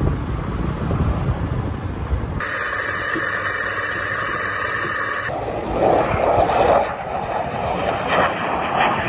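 Three sounds joined by hard cuts. First a low rumble. About two and a half seconds in, a coffee grinder runs with a bright, even hiss. From about five seconds, a passing aircraft's engine rush swells, loudest around six to seven seconds in.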